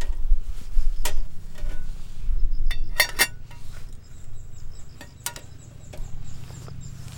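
Metal cookware and utensils clinking and knocking lightly a few times, with a quick cluster of clinks about three seconds in.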